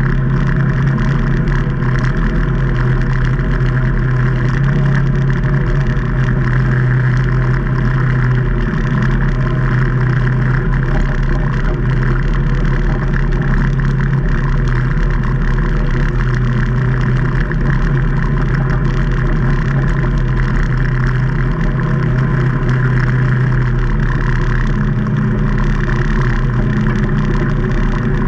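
2019 Can-Am Maverick Trail 800 side-by-side's Rotax V-twin engine running steadily under way, its note stepping up in pitch near the end.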